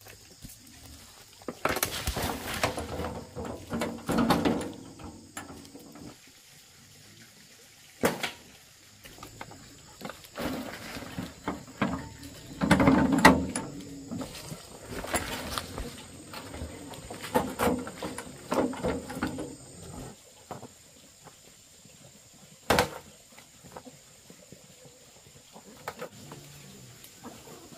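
A wheelbarrow load of earth tipped out onto the ground, with soil spilling and scraping, in several rounds of rustling, scraping work broken by a few sharp knocks.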